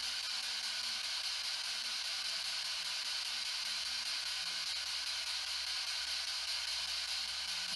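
Ghost box, a radio sweeping through stations, giving a steady hiss of static with faint low snatches of sound underneath.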